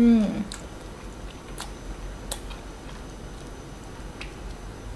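A woman's short voiced exclamation with a falling pitch, a reaction to the sour fruit she is eating, followed by faint scattered mouth clicks as she chews.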